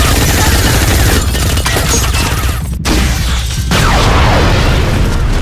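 Movie action soundtrack: a dense barrage of automatic gunfire and booming impacts, with one brief drop-out about three seconds in.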